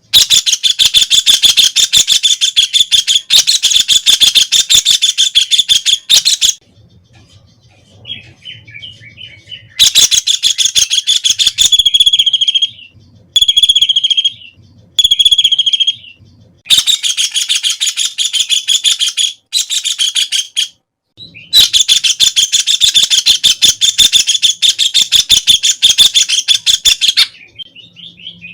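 White-throated kingfisher calling: loud, very rapid chattering trills of high notes, in long runs of several seconds each. Near the middle, the long runs give way to a few shorter bursts.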